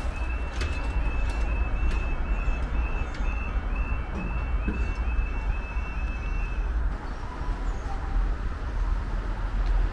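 UK railway level crossing alarm: a high two-tone warble repeating rapidly while the crossing barriers lower, then cutting off suddenly about seven seconds in. A steady low rumble of wind on the microphone runs underneath.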